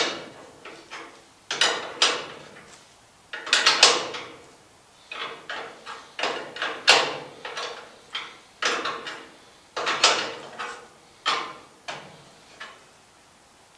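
Hand tools working on metal: a string of irregular clanks and scrapes, about a dozen sharp knocks, each dying away quickly, while the steering shaft fittings are being unbolted.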